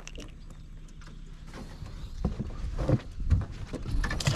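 Scattered light knocks and handling noise while a caught bluegill is unhooked and held over an aluminum jon boat. The knocks come more often in the second half.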